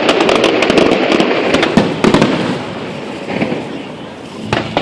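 Aerial fireworks bursting: a dense run of quick crackling reports over the first two seconds, easing off, then two sharp bangs near the end.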